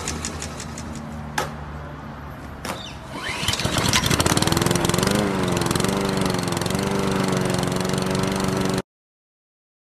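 Small lawnmower engine being pull-started: a few sharp yanks, then it catches about three and a half seconds in and runs with a slightly wavering pitch, cutting off suddenly near the end.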